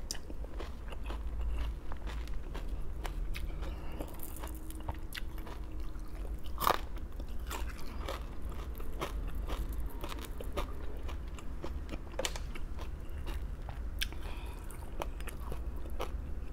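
A person eating crunchy raw vegetables close to the microphone: a run of crisp bites and chewing, the sharpest crunch about seven seconds in, over a low steady hum.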